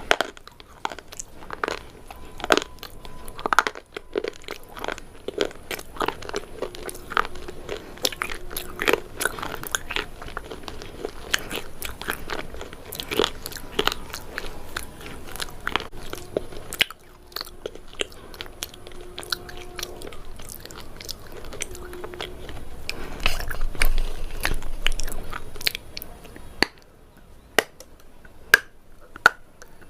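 Close-up mouth sounds of a person biting and chewing a dry, brittle substance that has not been wetted: sharp crunches come several times a second, swell into a louder run of chewing about two-thirds of the way through, then thin out to a few single crunches near the end.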